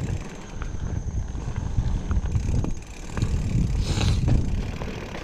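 Mountain bike riding a dirt trail: wind buffeting the microphone over tyre rumble, with scattered chain and frame rattles and a short hiss about four seconds in.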